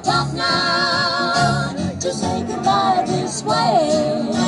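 Female vocal trio singing a 1940s swing number in close harmony, with held notes and a sliding phrase near the end, over music accompaniment.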